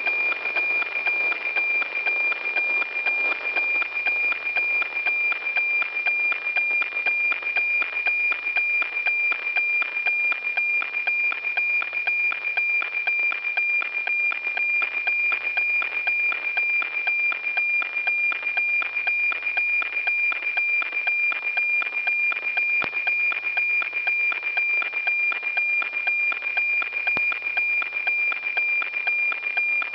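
NOAA-19 weather satellite APT signal as received on a radio: a steady high tone of about 2.4 kHz, with an even, fast ticking beat running through it as the picture lines are sent.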